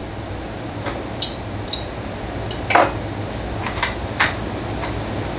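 Scattered light metallic clicks and clinks, about half a dozen, as a hand tool works the screws on the blade guard of a DeWalt miter saw, over a steady low hum.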